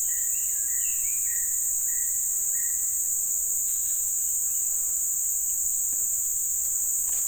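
A steady, loud, high-pitched chorus of insects. In the first few seconds a bird calls with a short note repeated about twice a second, and a few gliding chirps come in between.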